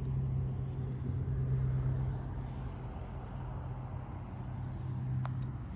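A steady low motor hum, like an idling engine, with insects chirping faintly in a repeating pattern and a single short click about five seconds in.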